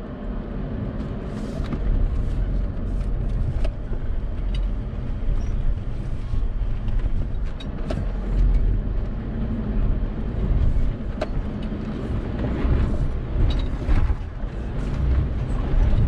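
Toyota Tacoma pickup crawling slowly over slickrock: a steady low engine and drivetrain rumble, with scattered clicks and knocks throughout.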